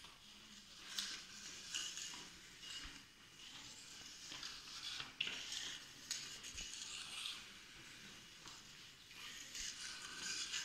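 Field hockey stick knocking a hockey ball along a tiled floor while dribbling: scattered sharp clicks of stick on ball, with scuffing of the ball and shoes on the tiles between them.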